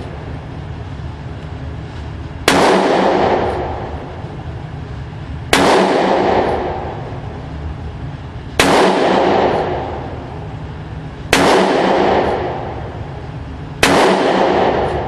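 Colt .357 Magnum revolver fired five times, one shot every two and a half to three seconds, each loud report followed by an echo that dies away over about a second and a half. A steady low rumble runs underneath.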